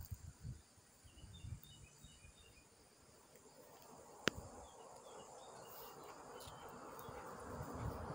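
Faint outdoor garden ambience: scattered small high chirps, a few low thumps early on, one sharp click about four seconds in, and a rushing noise that grows steadily louder toward the end.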